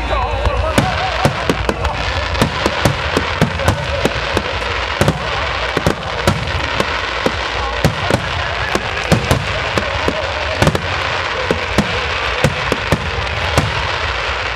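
Fireworks display: aerial shells and low-level effects going off in rapid, irregular succession, several sharp bangs a second over a continuous crackle.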